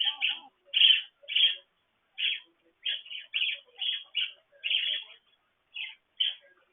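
Pet budgerigars (parakeets) chirping: a quick run of short, high chirps, several a second, with a short pause near the end.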